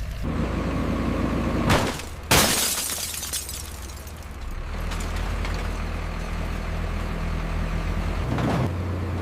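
A heavy machine's engine running steadily, broken about two seconds in by a knock and then a loud crash with glass shattering that fades away, after which the engine carries on.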